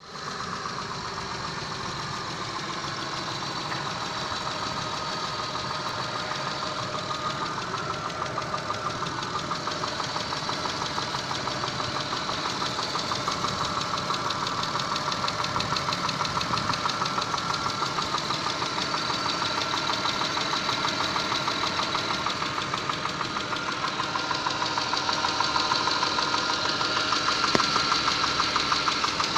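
Mitsubishi 6A13 2.5-litre V6 running warm with a rapid, even knock from the engine, growing gradually louder.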